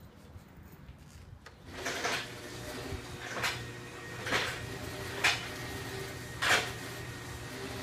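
Cellulose insulation blowing machine starting up about two seconds in and running steadily, with air and loose cellulose rushing through the hose into the wall cavity in a hiss that surges about five times.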